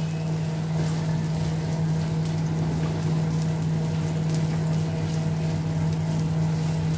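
Sliced onions frying in oil in a wide black frying pan, stirred and scraped with a spatula, under a steady low machine hum that is the loudest sound throughout.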